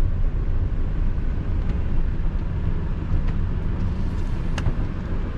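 Car driving slowly, a steady low engine and road-noise rumble heard from inside the cabin, with a faint tick about four and a half seconds in.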